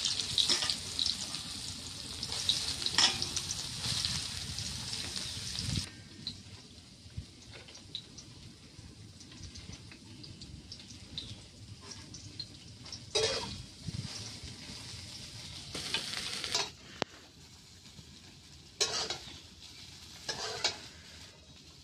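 Soaked large soya chunks sizzling as they fry in hot oil in a metal kadai, loud for the first six seconds and then quieter. A few short scrapes of a metal spatula against the pan come later.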